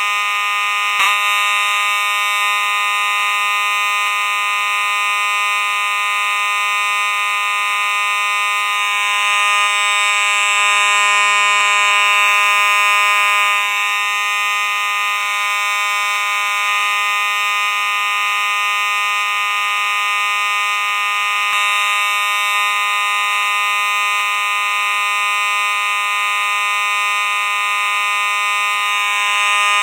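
Simplex fire alarm sounding continuously: one steady, unbroken alarm tone with many overtones, and a small click about a second in.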